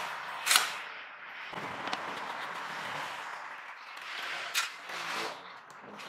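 A plastic number-plate holder on a car's front bumper being handled and pried off, with rustling and scraping and two sharp plastic snaps, about half a second in and about four and a half seconds in.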